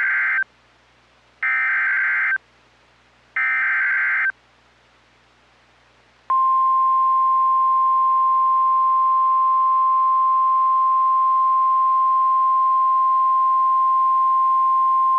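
Emergency Alert System SAME header: three buzzing data bursts about a second long with short gaps, the first already under way, announcing the next alert. About six seconds in, the NOAA Weather Radio 1050 Hz warning alarm tone starts and holds steady for about nine seconds.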